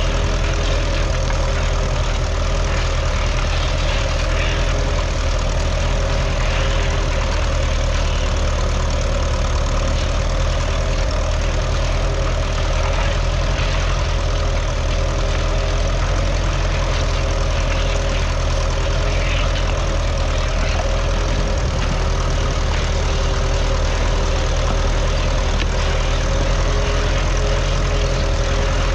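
A 1951 Ferguson TED20 tractor's 2.1-litre four-cylinder petrol/TVO engine running at a steady speed.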